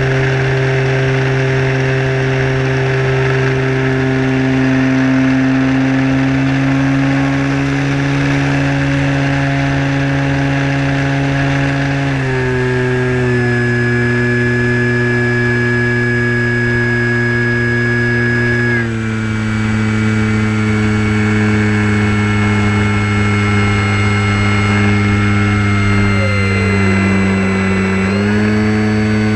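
Sport Cub RC model plane's motor and propeller heard from on board, a steady buzzing drone. Its pitch steps down twice, about 12 and 19 seconds in, as the throttle is eased back for the descent, sinks lower still near the end, then rises again as power is added low over the field.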